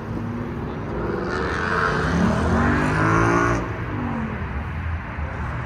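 A car engine revs up, its pitch rising for a couple of seconds and falling away about three and a half seconds in, over a steady low engine rumble.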